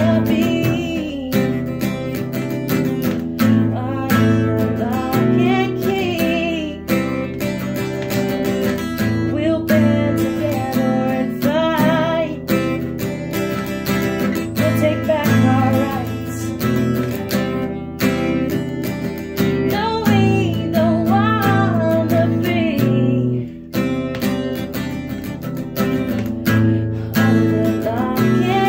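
Acoustic guitar strummed steadily, with a voice singing a melody over it.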